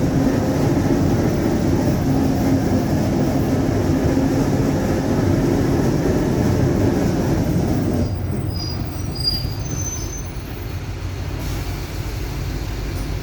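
Mercedes-Benz OF-1721 bus under way, its rear differential growling with a steady whine over the drivetrain noise. About two-thirds of the way through the whine fades and the noise drops, with a few brief high squeaks.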